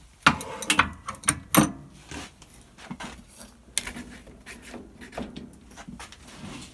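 Knocks, clatters and rubbing of a plasma TV's metal backing and parts being handled. A cluster of loud knocks comes in the first two seconds, with a single sharp knock near the middle.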